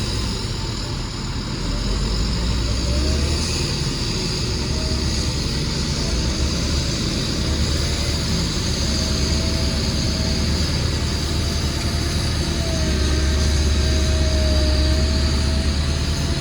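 Heavy diesel earthmoving machinery running steadily, a deep low rumble with a faint wavering whine above it; the rumble grows a little louder in the last few seconds.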